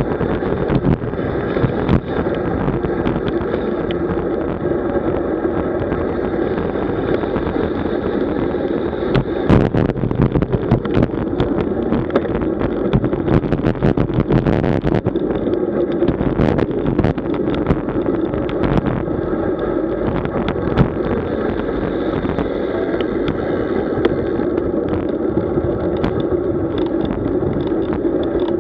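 Steady rumble and wind noise of a road bicycle in motion, heard on the microphone as a constant droning hum. Scattered sharp clicks and knocks, most of them in the middle.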